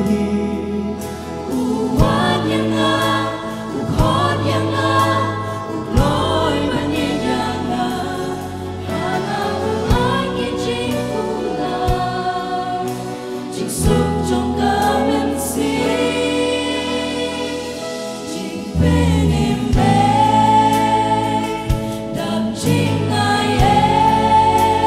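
A mixed group of young voices singing a Christian worship song in harmony, with acoustic guitars, keyboard and drums; a strong beat lands about every two seconds.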